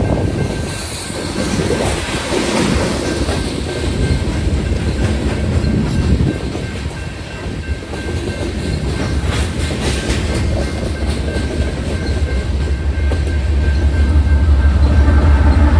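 Freight cars of a Union Pacific manifest train rolling past, their wheels clicking and knocking over the rails. A louder low rumble builds near the end.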